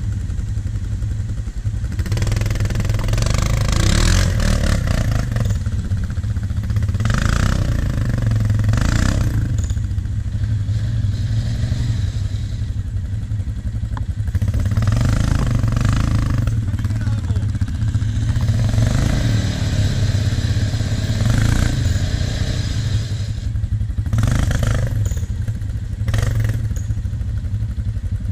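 Quad bike (ATV) engines: a steady low engine rumble close by, with an engine revving up in repeated surges, about five or six times, as an ATV fights to get through deep mud.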